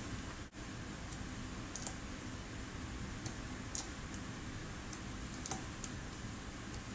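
Scattered light clicks of small metal parts and a hand tool being worked into the top of a pneumatic tool's housing during assembly, about nine in all, the loudest a little past halfway, over a steady background hum.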